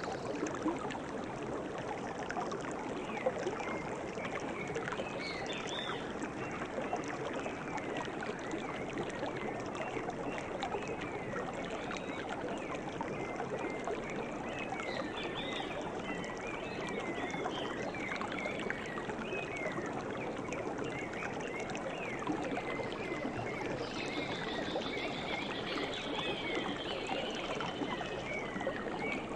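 Steady flowing stream water, with birds chirping over it and a fast trill near the end.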